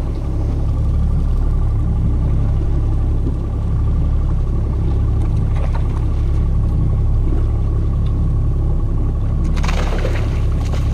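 A 90 hp outboard motor running at low throttle, a steady low rumble with a faint whine over it. About nine and a half seconds in there is a brief rush of noise.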